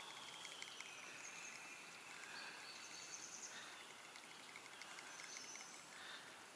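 Quiet open-air ambience: a faint, even hiss with a few brief, faint high-pitched chirps.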